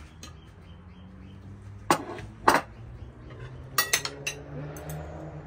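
Metal spoons and forks clinking against ceramic plates and a serving dish as food is served: two sharp clinks about two seconds in, then a quick run of smaller clinks around four seconds.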